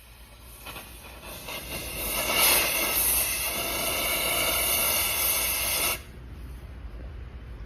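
Gas hissing from the torch of an ASAHI Welding Pack portable gas welding kit. The hiss builds over the first two seconds, holds steady, then cuts off suddenly about six seconds in.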